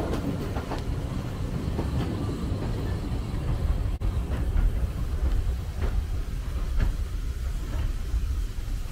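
Heritage steam-hauled passenger carriage rolling slowly through a station: a steady low rumble with a few scattered clicks of the wheels over the rail joints.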